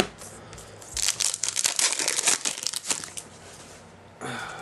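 Crinkling of a trading-card pack's foil or plastic wrapper being handled, a dense run of crackles lasting about two seconds.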